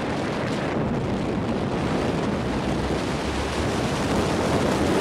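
Wind buffeting the microphone of a camera during a tandem parachute descent under an open canopy, a steady rushing noise that grows a little louder near the end.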